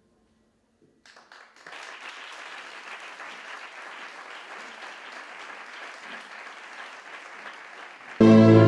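Audience applauding, starting about a second in and holding steady. Near the end, string music comes in suddenly and loudly.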